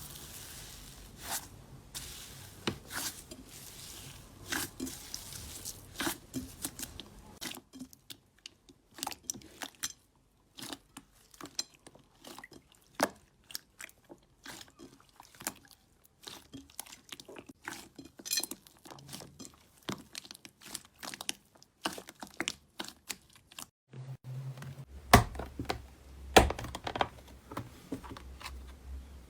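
Slime being squeezed and pressed by hand: a steady run of crisp crackles and sticky pops, louder near the end.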